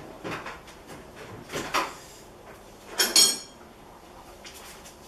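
Hand tools being handled on a workbench: several knocks and clinks, the loudest a ringing metal clink about three seconds in.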